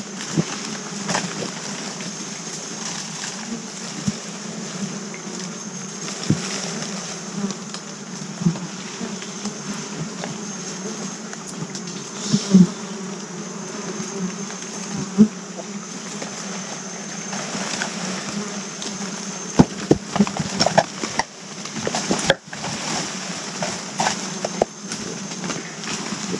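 Forest insects buzzing steadily: a low droning hum with a thin, high, unbroken whine above it. Scattered sharp snaps and crackles come through it, more of them in the second half.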